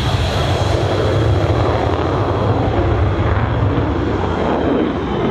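Mikoyan MiG-29A Fulcrum's twin jet engines running loud and steady: a deep rumble with a thin high whine on top.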